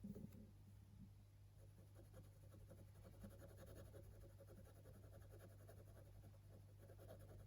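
Faint scratching of a pen on paper in quick, short back-and-forth strokes, after a soft knock at the start, over a steady low electrical hum.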